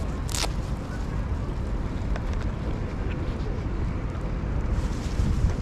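Wind rumbling on the microphone, a steady low rumble over an outdoor background, with one brief sharp hiss just after the start.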